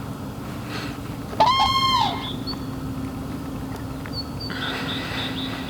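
Common crane giving one loud call, about two-thirds of a second long, roughly a second and a half in. A steady low hum runs underneath, with a few short high chirps from small birds.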